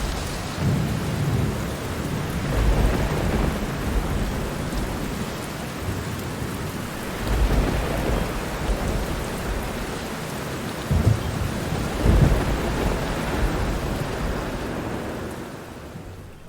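Steady rainfall with low thunder rumbling and swelling several times. The whole sound fades down near the end.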